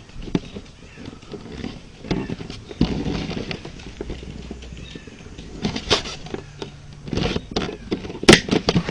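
Rustling with scattered clicks and knocks, a few sharper knocks standing out about six, seven and eight seconds in.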